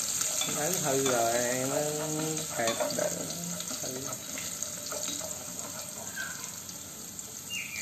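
Steady hiss of food cooking on a gas stove while wooden chopsticks stir a pot of crab broth. A person's voice talks briefly near the start.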